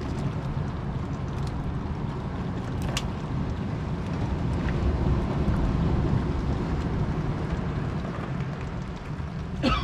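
A boat's engine running steadily as a low rumble, with one sharp click about three seconds in.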